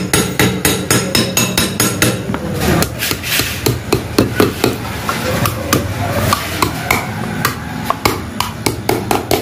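Cloth-wrapped hand hammer beating thin stainless steel sheet around a steel rod to roll it into a tube: rapid, repeated blows, several a second.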